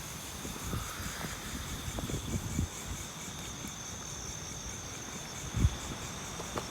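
Night insects, crickets among them, chirring steadily in a high, fast-pulsing drone. A few short low thumps sound under them, the loudest about five and a half seconds in.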